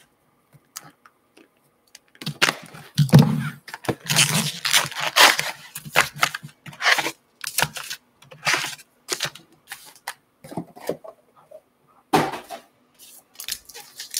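Plastic shrink-wrap being cut and torn off a Gypsy Queen trading-card hobby box, then the box opened and its foil card packs handled and set down. The result is a run of tearing, crinkling and scraping noises with a few dull knocks, starting about two seconds in.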